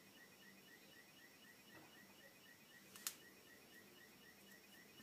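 Near silence, with a faint high chirp repeating rapidly, about four times a second, and a single sharp click about three seconds in.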